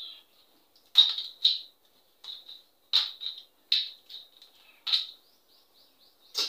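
Wet mouth sounds of close-up chewing: a series of short, sharp lip smacks and squelches, irregular, one or two a second.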